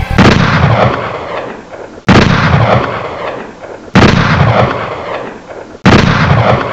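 Four loud booming impact hits in an intro sequence, evenly spaced about two seconds apart, each struck suddenly and then fading away.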